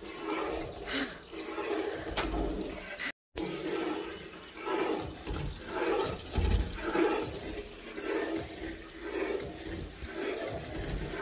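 Thick, sweet batter with ghee being stirred with a steel ladle in a kadhai on the stove: a wet, liquid sound that swells roughly once a second with the strokes.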